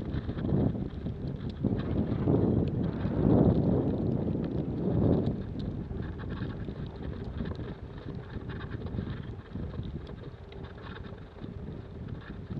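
Snowstorm wind buffeting the microphone in gusts: a low rushing noise that swells several times in the first five seconds, then eases to a quieter, steadier rush.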